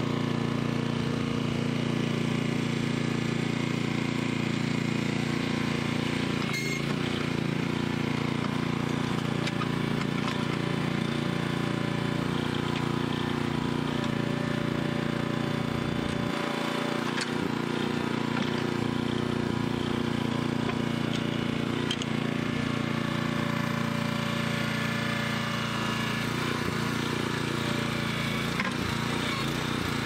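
The small engine of a Central Machinery towable backhoe runs steadily while the boom and bucket dig, with a few short sharp knocks along the way.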